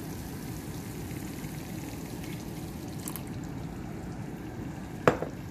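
Milk poured from a bowl into a pan of chicken 65 sauce, over the steady low sound of the sauce simmering. A single sharp knock near the end is the loudest sound.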